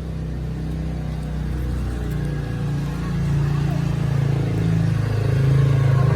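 Wood-carving CNC machine running with a steady low hum that grows louder about halfway through.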